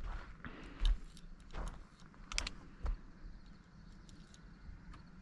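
Scattered sharp metallic clicks and handling noise, with a few clicks in the first three seconds and then quieter rustle: the cap-and-ball revolver being handled between shots.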